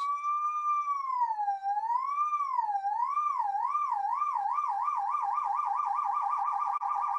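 Modular synthesizer oscillator being frequency-modulated by a second oscillator: a steady pitched tone swings up and down like a siren, slowly at first and then faster and faster as the modulating oscillator's rate is turned up, until it becomes a rapid warble.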